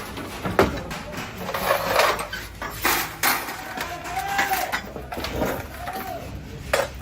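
Irregular knocks and metallic clatter of hand tools on car body metal, with a voice in the background.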